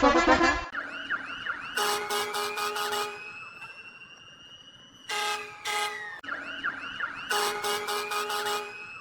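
Emergency-vehicle siren sound effects: quick up-and-down siren yelps and a slowly rising siren wail. They are broken three times by loud, rapidly pulsing truck horn blasts.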